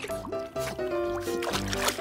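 Background music: a melody of held notes moving step by step over a steady beat.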